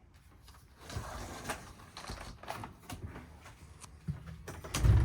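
Scattered light knocks and rattles inside a motorhome, then a heavy low thud near the end: handling and footstep noises as someone moves past a sliding divider door.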